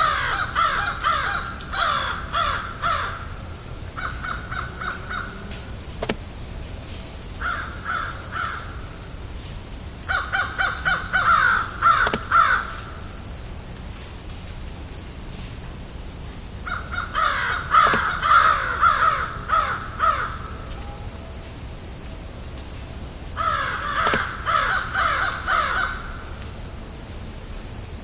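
Crows cawing in about six bouts of rapid, harsh, repeated caws, with pauses of a few seconds between bouts, over a steady high-pitched hiss.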